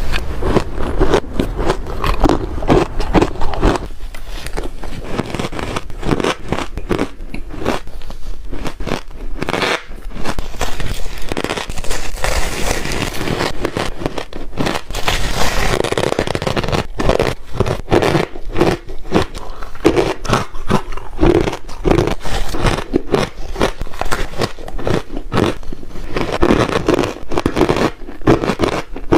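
Close-miked chewing of ice: repeated crunching and crackling bites with squeaky scraping as the ice is ground between the teeth, going on without a pause.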